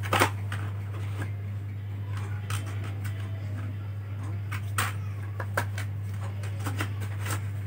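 Light clicks and taps of small laptop parts being handled and fitted, scattered irregularly, over a steady low hum.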